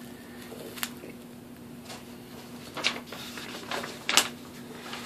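Bubble wrap crinkling and rustling in the hands as a small wrapped package is handled, with a sharp click about a second in and a louder crackle about four seconds in, over a faint steady hum.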